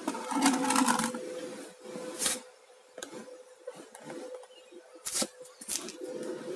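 Handling noise and a few short, sharp knocks as a phone camera is moved and repositioned by hand.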